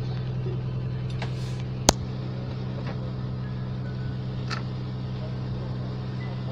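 Fishing boat's engine running with a steady low hum, with one sharp knock about two seconds in and a fainter tap a little over four seconds in.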